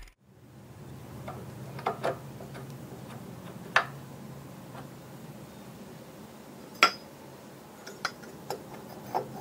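Scattered light metallic clicks and clinks of metal parts being handled over a low steady hum, about eight in all, the two sharpest about four and seven seconds in.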